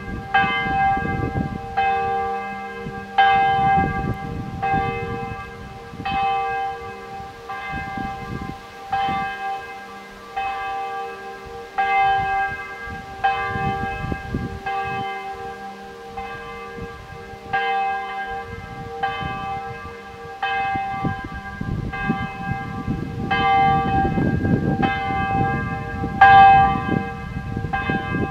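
Monastery church bell tolling steadily, struck about every one and a half seconds, each stroke ringing on into the next. Wind gusts in the trees and across the microphone, strongest a little before the end.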